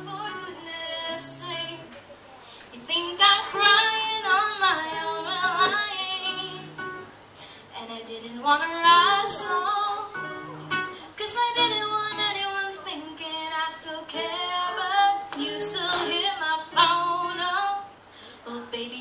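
A girl singing a pop song into a microphone, accompanied by two acoustic guitars playing chords with repeated low bass notes.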